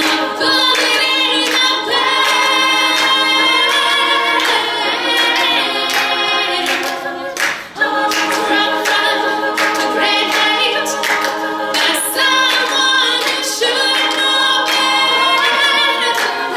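All-female a cappella group singing in close harmony, a lead voice carried over sustained backing voices, with sharp rhythmic hits running through it. About eight seconds in the voices drop away for a moment and come back in on a sharp accent.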